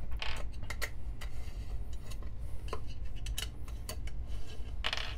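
Irregular small metallic clicks and clinks of a T-handle Allen key working the screws on top of a Niche Zero coffee grinder's housing, with a louder clink near the end.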